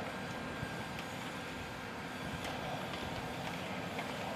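Steady machinery noise in a large aircraft hangar, with a faint steady tone and a few light clicks.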